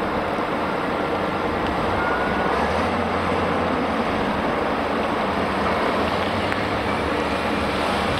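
Heavy diesel engines of a Liebherr R980 SME front shovel and Belaz 7547 mining dump trucks running steadily at work, with a low engine drone that grows stronger a couple of seconds in as a truck manoeuvres into loading position.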